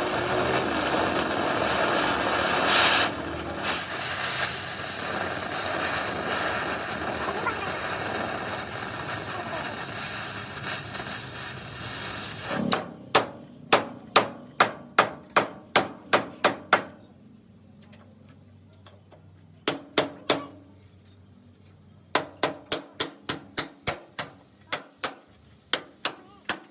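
A steady, loud rushing noise that cuts off abruptly about halfway through. Then a hammer strikes steel in runs of sharp ringing blows, about two to three a second, with a pause of a few seconds between runs.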